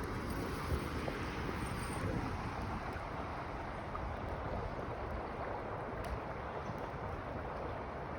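Steady rushing of a creek's flowing water, with wind buffeting the microphone.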